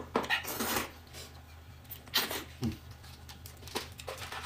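Close-up eating sounds: a person slurping and chewing cup rice noodles, in short irregular bursts with pauses between.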